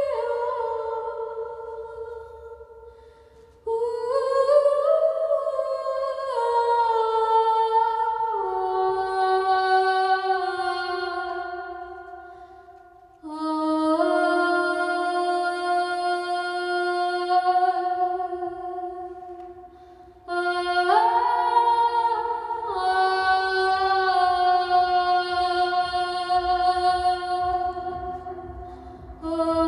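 Slow wordless singing or humming, likely a woman's voice, in long held notes that step from pitch to pitch. It comes in phrases that start suddenly and fade away over several seconds, four times.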